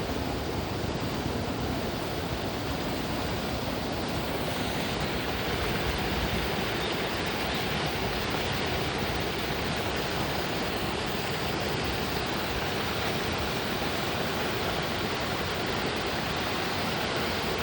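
Steady rushing noise, even and unbroken, with no ringing tones or distinct events.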